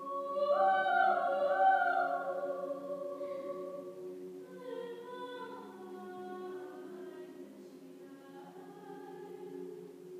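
Unaccompanied chamber choir singing: the lower voices hold a steady chord while a high soprano line sings phrases above it, loudest in the first two seconds and softer after a short break about halfway through.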